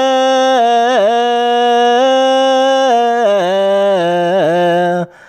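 Ethiopian Orthodox zema chant of a Ge'ez psalm verse: a single voice draws out one syllable in long held notes with quick ornamental turns. It steps down in pitch about three seconds in and breaks off near the end.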